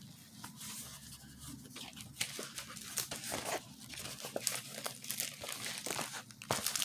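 Plastic packaging and a rolled diamond-painting canvas crinkling and rustling as they are unpacked by hand, in many short, irregular crackles.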